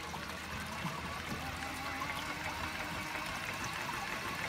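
Water trickling steadily down the riffled mat of a homemade gold shaker table, with a steady low hum underneath.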